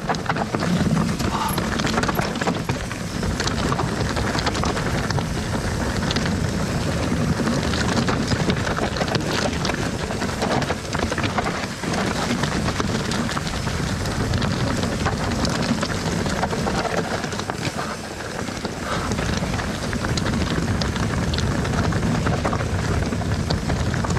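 Steel hardtail mountain bike (Nordest Bardino) riding down steep loose scree with the brakes held on: tyres crunching over rock and the bike rattling, with frequent sharp clicks and knocks, over steady wind noise on the microphone.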